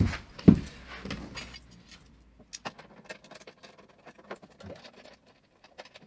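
Metal TV wall-bracket arm handled against the back of an LG OLED CX television, with two dull knocks in the first half second, then light scattered clicks and scrapes as the M6 screws are fitted into the threaded mounting holes.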